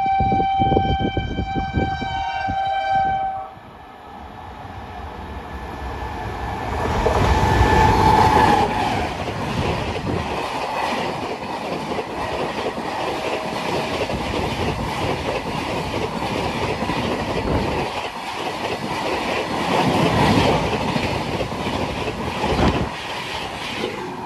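Indian Railways express train's horn held as one steady tone for about three seconds, then the train rushing past at speed: a loud, long rumble and rattle of coaches on the rails.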